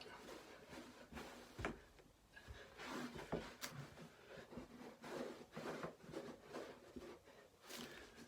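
Faint, irregular knocks, taps and shuffles of people moving through a circuit-training exercise.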